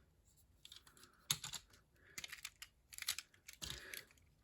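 Faint, scattered clicks and taps of hard plastic toy parts being handled, in a few small clusters.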